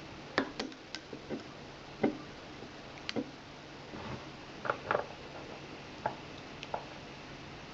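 Scattered light clicks and taps of small hard objects being handled, a Zippo lighter and a fuel syringe, spaced irregularly with a quick cluster about five seconds in.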